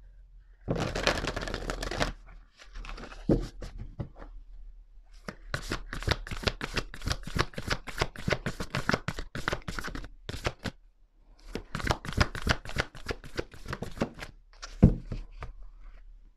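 A deck of oracle cards being shuffled by hand: a dense burst about a second in, then two longer spells of rapid card slaps and flutters, and a single knock near the end.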